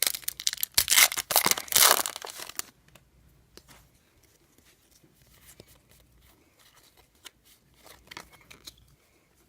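A trading card pack's wrapper being torn open and crinkled for the first three seconds or so, then faint clicks and rustles of cards being handled.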